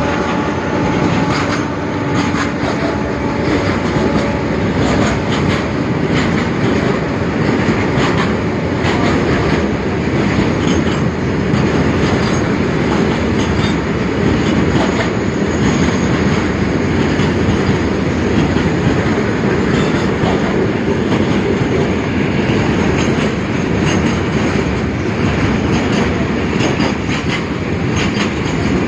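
A goods train running fast past the microphone, with steady loud rumble and rattle of wagon wheels on the rails. A held horn tone fades out in the first few seconds.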